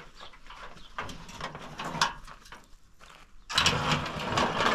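A corrugated sheet-metal cover dragged and scraped across dirt as it is pulled off a pit in the ground. Light scraping and a sharp knock about two seconds in, then a loud grating scrape from about three and a half seconds in.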